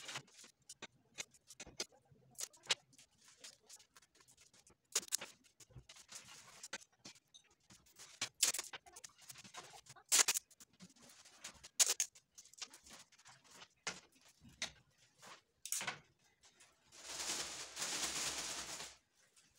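Thin paper kites crackling and rustling as they are handled and decorated with strips of tape: a string of short, sharp crinkles, then a longer, denser rustle near the end as a kite is lifted.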